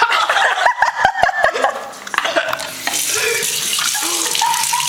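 A second or so of voices with several sharp puffs and sputters, then water running steadily from a tap.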